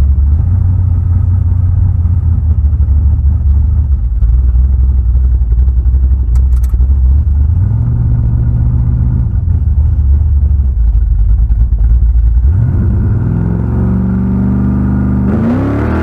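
1974 Chevrolet Nova's engine running loud under acceleration on a test pull with its new 3.42 rear gear and 3000-stall converter. The pitch steps a few times and climbs steadily in the last few seconds as the engine revs up.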